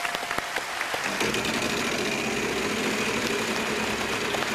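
A large game-show prize wheel spinning, its pointer flapper clicking rapidly against the pegs, over studio audience applause. A steady hum joins about a second in.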